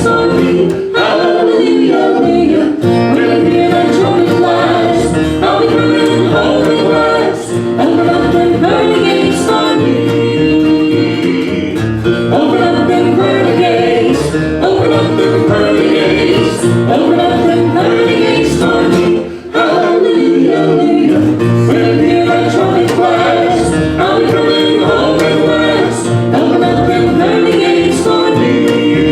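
Southern gospel group singing a hymn in close vocal harmony over acoustic string-band accompaniment.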